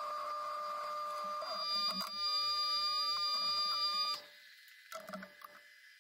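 1941 Bridgeport J-head milling machine running with a steady whine, cutting off suddenly about four seconds in. A few faint clicks follow.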